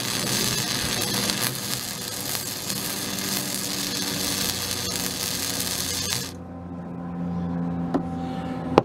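Flux-cored wire-feed welder (Lincoln Pro Core 100) arc crackling and sputtering steadily as a bead is run on a steel bumper bracket, cutting off about six seconds in. A low hum remains afterwards, with a sharp click near the end.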